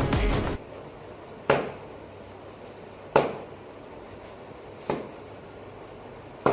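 Cricket bat striking a ball four times, sharp wooden knocks evenly spaced about a second and a half apart, each with a short ring after it.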